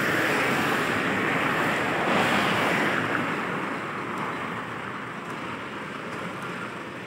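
Road traffic passing on the highway: an even hiss of tyres and engines that is loudest for the first few seconds and then fades as the vehicles move away.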